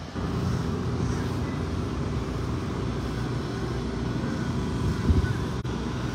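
Wind rumbling on the microphone over a steady engine drone, with a louder gust about five seconds in.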